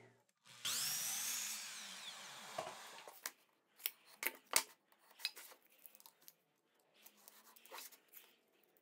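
Table saw cutting a strip of MDF, its noise fading as the cut ends and the blade winds down. After that, a series of small clicks and taps from a tape measure and pencil marking the board.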